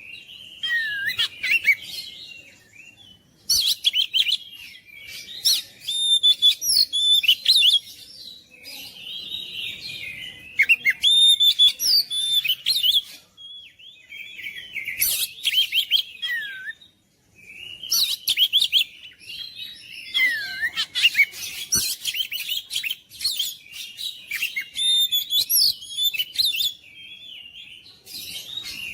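Oriental magpie-robin (kacer) singing loudly: bursts of a few seconds of rapid, varied whistles, trills and slurred notes, broken by short pauses.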